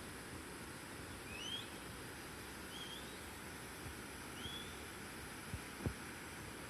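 Steady rush of falling water from a small waterfall. A bird gives three short rising chirps in the first half, and two soft low thumps come near the end.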